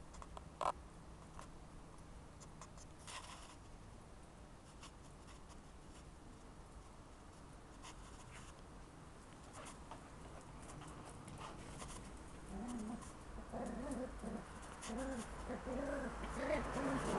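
A puppy making a run of short, soft whining and grunting calls, starting about twelve seconds in and getting louder toward the end. Before that only faint scuffs, with one sharp click about a second in.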